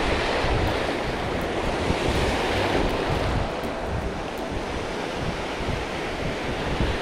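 Surf of the incoming tide breaking and washing over a gravel beach, with wind rumbling on the microphone.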